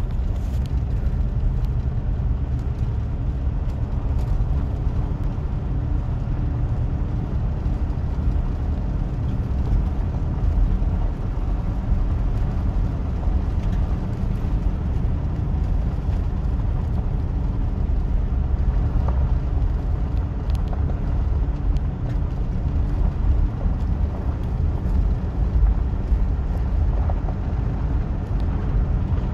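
Car interior noise while driving: a steady low rumble of the engine and tyres on a paved road, heard inside the cabin.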